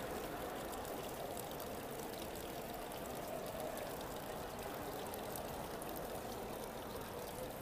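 Steady rushing background noise of a large public hall, with faint distant voices murmuring.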